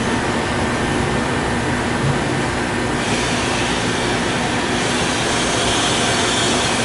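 HSF 1200 triangle folding bag-making machine running with a steady, loud mechanical noise; the sound gets brighter and hissier about three seconds in.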